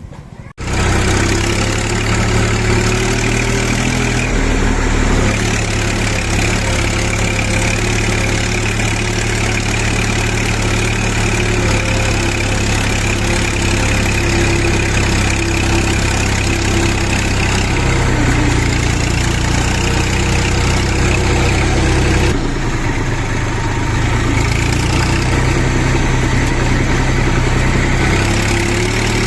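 JCB 3DX backhoe loader's diesel engine running loudly and steadily while working. The engine note shifts about five seconds in and again near the end as the load changes.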